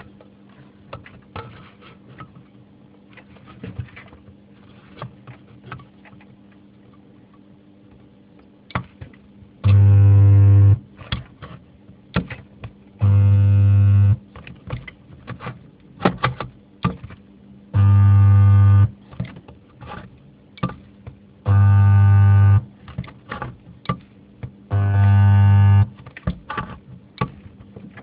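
Homemade spot welder's transformer humming loudly in pulses of about a second each, five times starting about ten seconds in. Each hum is one timed weld of roughly a kiloampere through the electrodes. Clicks and taps of the arms and sheet metal fall between the pulses.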